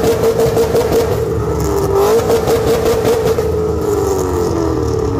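Shelby Mustang V8 revved hard while standing still and held at high revs. The revs dip briefly about two seconds in, then slowly sag near the end.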